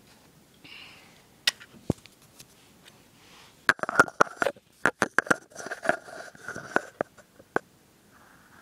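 Handling noise from a small black plastic magnifier being picked up and held against the camera: a few scattered clicks, then a dense run of sharp clicks, knocks and scraping about halfway in.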